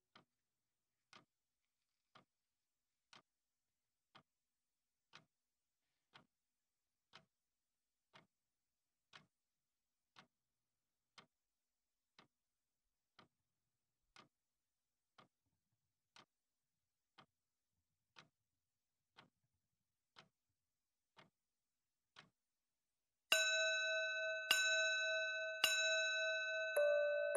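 Mantel clock ticking softly once a second, then, about 23 seconds in, striking the hour with loud ringing bell-like chimes a little over a second apart: the clock striking midnight.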